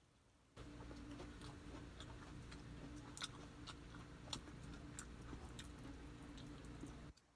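A person chewing food with the mouth, with scattered sharp wet clicks, over a steady low hum that starts about half a second in and cuts off suddenly near the end.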